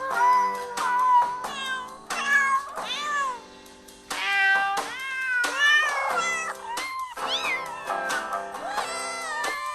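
A kitten meowing again and again, short high calls that rise and fall in pitch: a young kitten crying for its missing mother.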